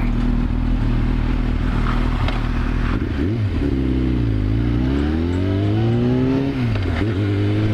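Yamaha YZF-R6's inline-four engine under way at steady revs; about three seconds in the revs dip, then climb steadily for about two seconds before dropping sharply, then hold steady again.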